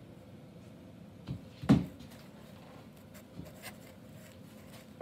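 A single loud, short thump about a second and a half in, just after a softer knock, then a couple of faint knocks over quiet room tone.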